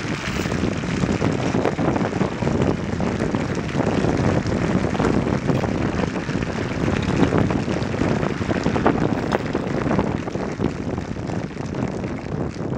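Large crowd applauding, a dense, steady clatter of many hands clapping.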